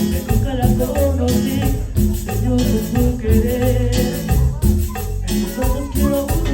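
A live band playing Latin music, with heavy bass notes changing in rhythm under a melodic line.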